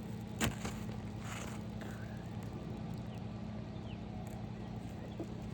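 An asphalt roof shingle being worked loose and slid out from under the course above: faint short scrapes and one sharp click about half a second in, over a steady low hum.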